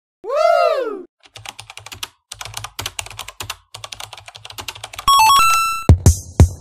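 Laptop keyboard typing, a fast irregular run of key clicks lasting about three and a half seconds. Before it comes a pitched swooping sound effect that rises and falls. After it comes a short run of electronic beeps stepping in pitch, and a drum-machine beat starts near the end.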